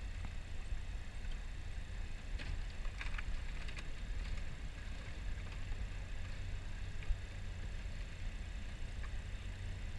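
Steady low rumble of the tug's engine as it moves the empty dump scow, with a few faint crackles about two to four seconds in.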